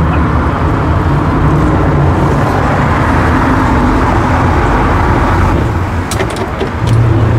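Vintage tram running along a city street, heard on board: a steady rumble of wheels on rails and motor, a few sharp clicks about six seconds in, then a low hum that comes in near the end.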